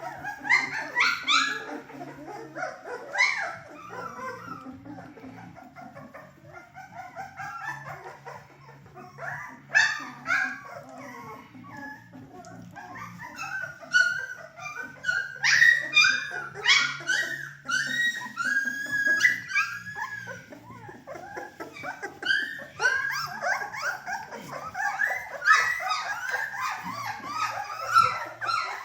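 Three-week-old Bernedoodle puppies whining and yelping, many short high-pitched squeals and yips overlapping one another, busiest in the second half.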